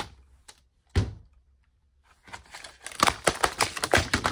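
A cordless soldering iron set down on a workbench with a single thunk about a second in, then a stiff plastic clamshell blister pack crackling and clattering as it is picked up and turned over.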